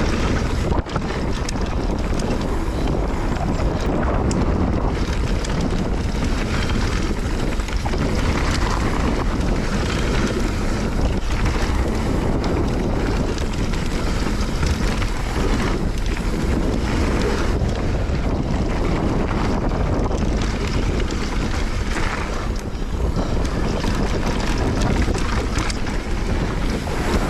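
Wind buffeting the camera microphone as a Nukeproof Giga mountain bike descends a dirt trail at speed, mixed with tyre noise and the rattles and knocks of the bike over the ground.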